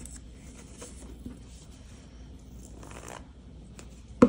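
Faint rustles and small ticks of paper pieces being handled and pressed together, with a short scrape about three seconds in. Near the end, one sharp thump as the plastic liquid-glue bottle is set down on the table.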